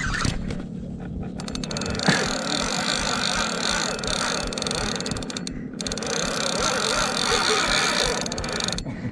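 PENN Battle II 5000 spinning reel being cranked by hand, its gears and line roller whirring with a fast, even ticking. The cranking stops briefly a little past halfway, then carries on.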